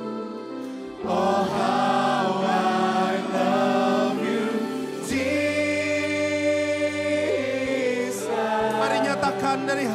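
A seven-voice vocal group singing a worship song in harmony into stage microphones, holding long chords.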